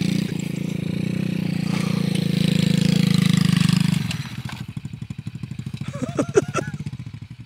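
Small quad ATV engine running steadily under throttle as it is ridden. About four seconds in it drops to a slower, quieter pulsing beat as the rider eases off.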